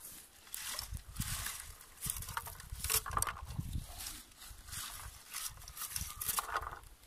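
Rustling and swishing of blueberry bushes as a plastic berry-picking comb is raked through them, in repeated strokes about once a second, with low thumps underneath.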